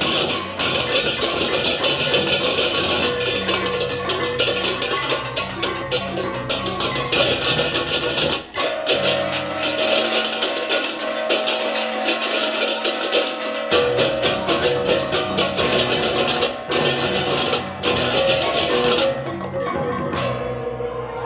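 Balinese baleganjur gamelan playing fast, with many pairs of ceng-ceng kopyak hand cymbals clashing in rapid interlocking rhythm over kendang drums and ringing gongs. The low drum part drops out about nine seconds in and comes back about five seconds later. The cymbals stop shortly before the end.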